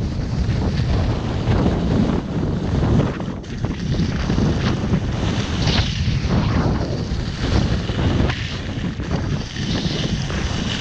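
Wind blowing hard across the microphone of a camera carried by a skier going downhill, with the hiss and scrape of skis on groomed snow swelling about halfway through and again near the end.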